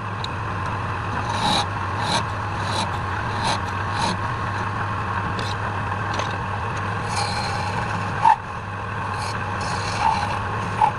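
Woodturning lathe running with a steady motor hum while a turning tool scrapes against the spinning workpiece in repeated short strokes.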